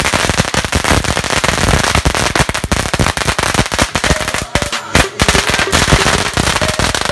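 Fireworks crackling with a dense, rapid run of pops, with a couple of brief gaps near the end.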